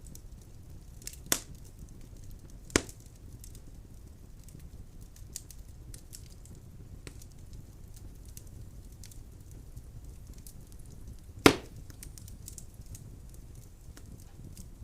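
Firewood burning in a fireplace: a low steady rush of flame with constant small crackles and three sharp pops, the loudest a little over two-thirds of the way through.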